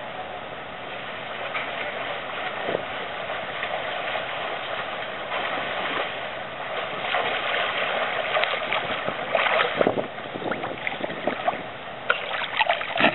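Swimming strokes splashing in a pool, with a steady wash of water noise. The splashes grow louder as the swimmer nears the microphone, and the loudest come near the end as he surfaces right at the pool's edge.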